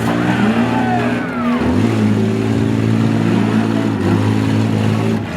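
Several car engines running at once in a demolition derby, revving up and down over each other, with a few short high squeals about a second in.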